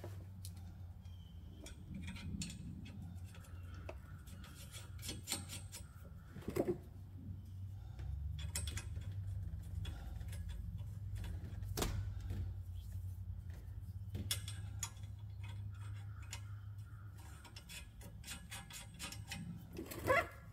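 Light metallic clicks and ticks of nuts being threaded by hand onto steel U-bolts, irregular with a few sharper taps, over a steady low hum.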